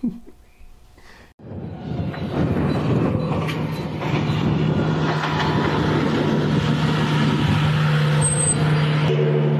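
Rally car engine running loud and steady close by, swelling in about a second and a half in and holding with a deep, even hum.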